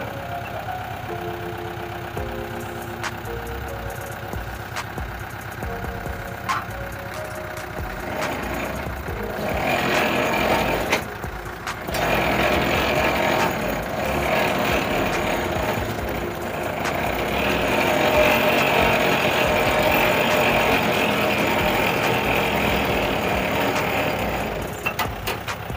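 The engine of a borewell pump-pulling rig drives its winch. It runs steadily, then gets louder and rougher from about eight seconds in until near the end, with a brief dip at about eleven seconds.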